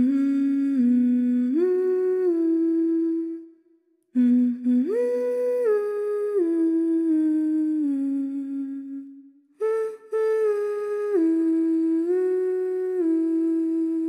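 A person humming a slow tune in three phrases with brief pauses between them, each phrase a few held notes stepping up and down.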